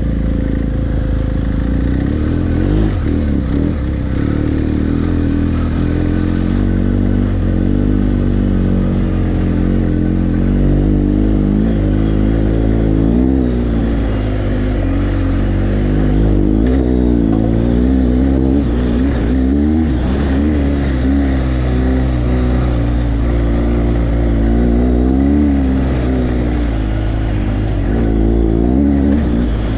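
BMW GS adventure motorcycle's boxer-twin engine running on a dirt trail, its revs rising and falling with the throttle. Heard from a camera mounted on the bike, with occasional knocks from the rough ground.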